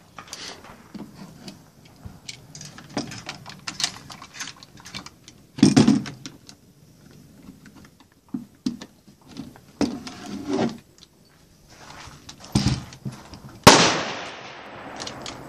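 Metal clicks, rattles and knocks from a Chinese-made Dragunov SVD rifle being handled as a bipod is fitted to it, with two louder sharp knocks, one about six seconds in and one near the end.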